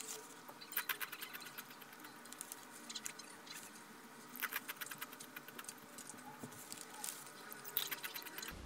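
Crispy baked chips crunching as they are bitten and chewed, in short bursts of crisp cracks that come in about four groups.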